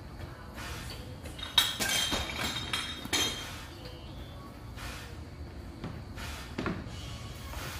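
A quick run of sharp, ringing clinks, like hard objects knocking together, about one and a half to three seconds in, over a steady low background hum.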